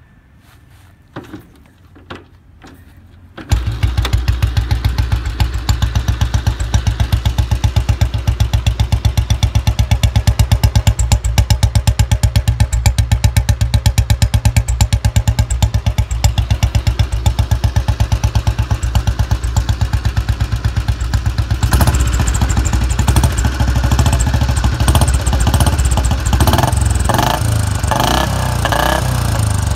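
A Royal Enfield Bullet Standard 350's single-cylinder four-stroke engine is kick-started with a few kicks. It catches about three and a half seconds in and settles into a steady, evenly pulsing thump through a short bottle silencer fitted with a whistle. After about twenty seconds of running the note grows fuller, and it is revved near the end.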